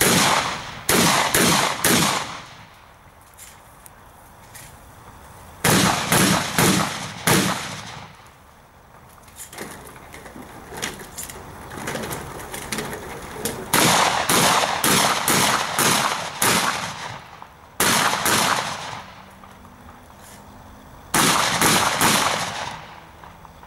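Shotgun fired in rapid strings of several shots each, five strings in all, with pauses of a few seconds between them as the shooter moves between positions.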